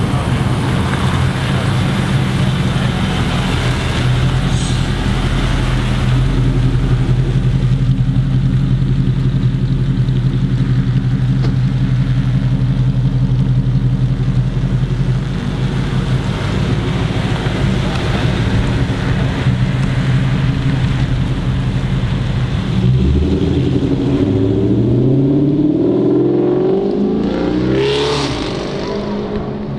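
Chrysler 300 SRT8's 6.1-litre Hemi V8 running through a Solo Performance 3-inch cat-back exhaust, steady at low revs for most of the time, then accelerating with its pitch rising in steps over the last several seconds.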